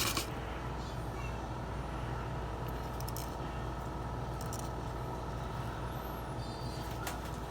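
Steady low mechanical hum, like a running motor, with a few faint clicks.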